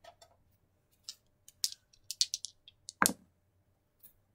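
Dice being rolled, a run of quick sharp clicks and clatters, then a louder knock about three seconds in.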